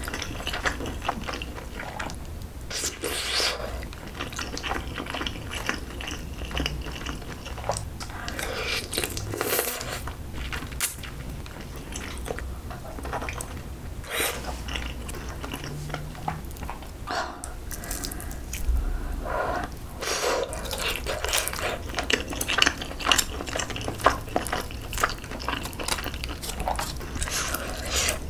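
Close-miked eating sounds: biting and chewing pieces of braised pork back rib and kimchi, with wet, squishy mouth sounds and many short sharp clicks.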